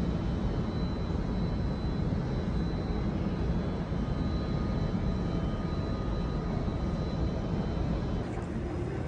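Steady low rumbling ambient noise, like wind or air handling, with faint steady high tones over it.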